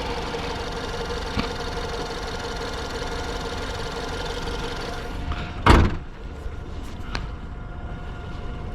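Ford Escape's engine idling steadily on its newly replaced battery, then a single loud slam a little past halfway through.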